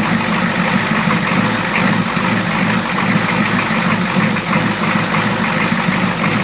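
1986 Ford F250's 6.9-litre IDI diesel V8 idling steadily. Fuel is still leaking from the number 8 injector, which the owner blames for the truck not wanting to run.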